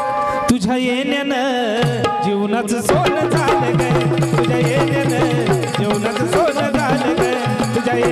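Live gondhal devotional song accompaniment: a fast, steady hand-drum rhythm under a wavering melody line.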